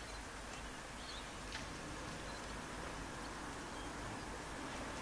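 Distant diesel locomotives approaching, a low drone slowly growing louder under the outdoor background hiss. A few faint bird chirps come early on.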